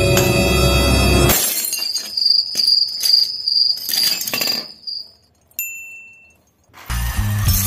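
Hammer striking a nail held against a brown glass bottle, about eight sharp strikes over three seconds as the glass breaks into shards, with a high pulsing chirp behind them. Then a single bright chime, with music at the start and again near the end.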